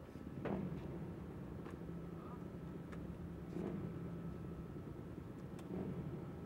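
A faint engine running steadily, swelling in level three times, with a few light clicks.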